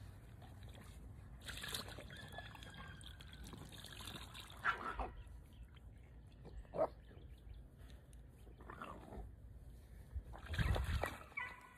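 Faint splashing and dripping of water in a shallow plastic pool as a puppy is bathed, with a few short sharp sounds in between and a louder rustle near the end.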